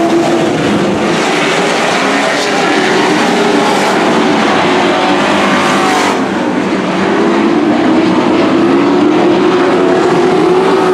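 Several dirt-track race trucks running hard in a pack, their engine pitches rising and falling as they accelerate and pass. Loud throughout.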